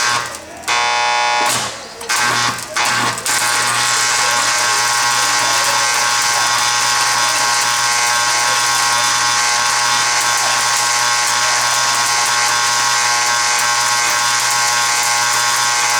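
Stick-welding arc from a 1/8-inch E-7018 electrode on DC reverse polarity, running a short backstep bead. The arc is struck and breaks off a few times in the first three seconds, then burns steadily as a loud, even crackling hiss over a low hum.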